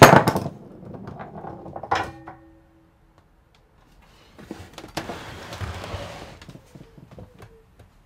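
Jars and a sliding glass cabinet door being handled: sharp knocks at first, a click with a short ringing note about two seconds in, then a rustle and a few small clicks.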